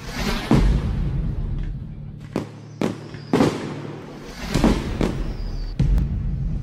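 Fireworks shells bursting in the air: about six sharp bangs, spaced irregularly, each trailing off in a crackling decay, over background music.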